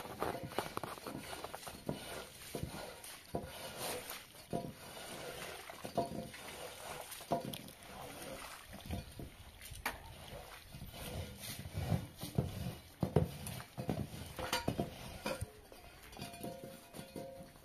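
Long-handled scrubbing brush working over a wet, soapy carpet in repeated irregular strokes, with scrapes and knocks.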